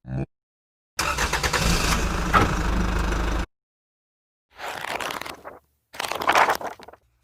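A run of separate short sound effects cut one after another, with dead silence between them. The longest lasts about two and a half seconds and is a dense, noisy sound with a heavy low rumble, followed by two shorter noisy effects of about a second each.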